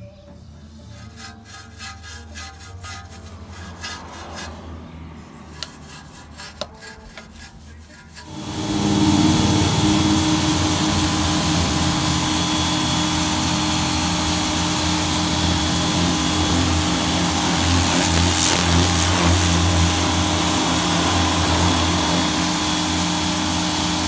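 Stiff red wheel brush scrubbing a wet wheel, a scratchy rubbing with small clicks. About eight seconds in, a Greenworks 1600 psi electric pressure washer starts and runs steadily, a loud hum under the noise of its jet rinsing the wheel and tyre.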